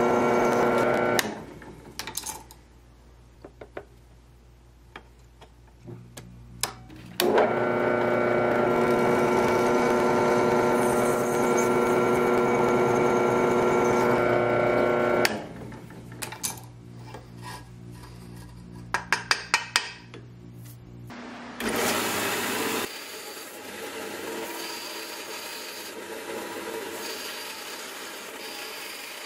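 Drill press boring through the thin steel of an old saw blade: a loud, steady whine during the first second and again for about eight seconds in the middle, with quieter clicks and clatter between the two holes. Near the end a quieter, steady noise takes over.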